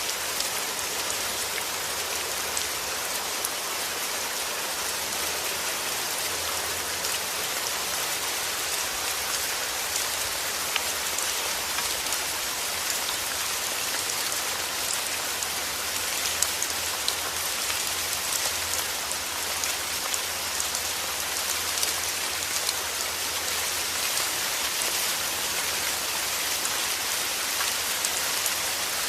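Steady rain falling, with a dense patter of individual drops hitting a surface.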